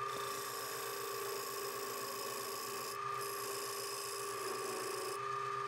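Wood lathe running with a steady whine while a gouge cuts into a large spinning wooden blank, a rough scraping hiss of wood being peeled away as shavings. The cutting hiss breaks off briefly about three seconds in and eases near the end.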